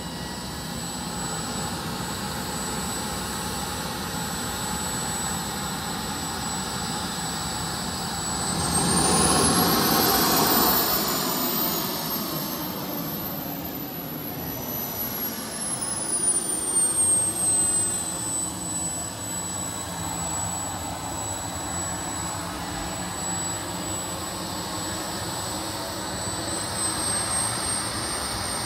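Radio-controlled jet fighter's model turbine engine in flight: a high whine with a rush of jet noise. About eight seconds in, the whine climbs in pitch and gets louder as the jet comes closest, then drops back down over the next several seconds, with a second loud surge around sixteen seconds.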